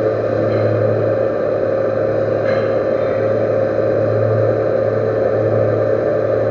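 Metal lathe running steadily, its spindle and drive giving a constant low hum with a steady higher whine above it.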